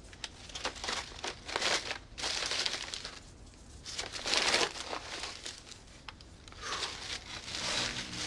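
Brown paper bag and the paper wrapping inside it being opened by hand, crinkling and rustling in several irregular bursts, loudest about halfway through. Soft music comes in near the end.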